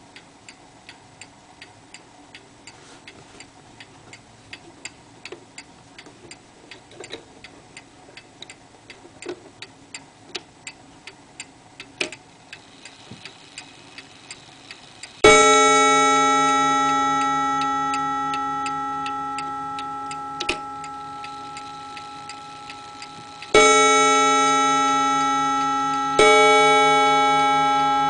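Pendulum clock movement ticking about twice a second. About halfway through, the hammer strikes its coiled wire gong, a ringing tone with many overtones that dies away slowly. The gong is struck twice more near the end.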